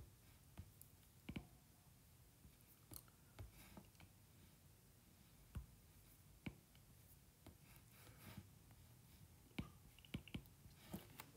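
Faint, scattered clicks of a stylus tapping on a tablet's glass screen, about a dozen at irregular intervals, over near silence.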